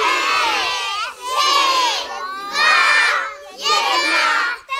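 A group of young children shouting a countdown in Czech in unison, one loud chanted number about every second.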